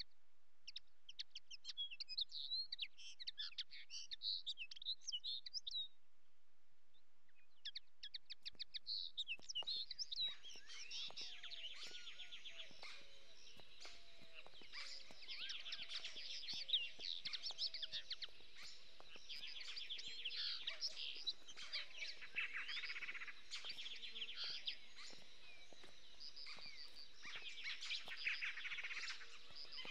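Many small birds chirping and singing at once, a busy chorus of quick high chirps. It drops out for a moment about six seconds in, then comes back fuller, with a lower repeated call running under it for a while.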